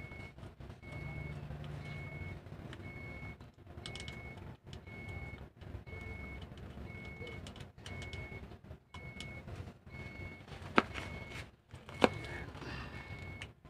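A short high electronic beep repeating about once a second over a low rumble. Near the end come two sharp metallic clicks, a little over a second apart, as the clutch cylinder is worked into place on the transmission housing.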